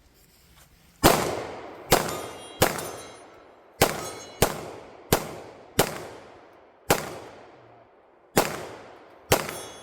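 About ten gunshots fired in a steady string, roughly one every second or less, each followed by a long ringing decay.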